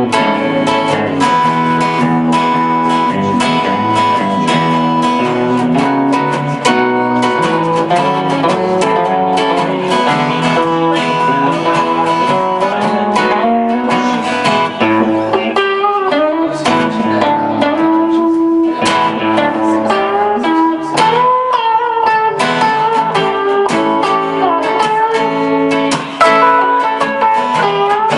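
An acoustic guitar and an electric guitar playing together in an instrumental jam, the acoustic strummed, with a continuous run of notes and some notes bending in pitch partway through.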